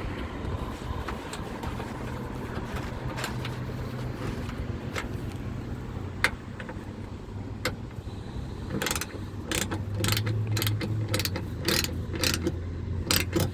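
Hand ratchet clicking in short runs as the tailgate latch fasteners are tightened, with scattered single clicks at first and quicker clicking from about two thirds of the way in, over a steady low hum.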